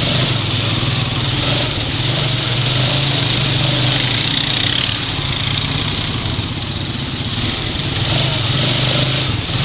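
Honda Rancher 420 ATV's engine running steadily at low speed as it crawls through mud and shallow water, with a steady hiss over the engine note.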